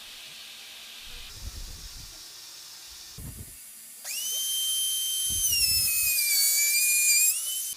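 Steady hiss with a few low knocks, then about four seconds in a small high-speed power tool starts with a loud high whine. Its pitch dips in the middle, rises again, and cuts off suddenly near the end.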